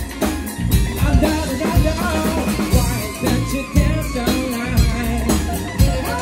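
Funk band playing live: a steady drum-kit beat with bass and electric guitar, saxophone, and a lead singer.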